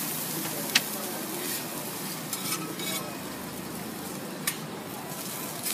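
A pancake frying on a flat-top griddle with a steady sizzle. Metal spatulas scrape and tap on the griddle, with a sharp click about three-quarters of a second in and another about four and a half seconds in.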